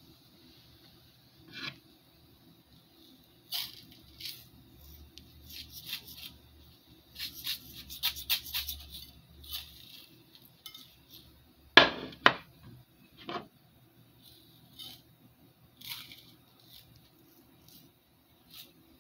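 Glass mason jars with metal screw lids being handled: scattered light clinks and knocks of glass and lids against each other and the tabletop, the loudest a pair of sharp knocks about half a second apart near the middle.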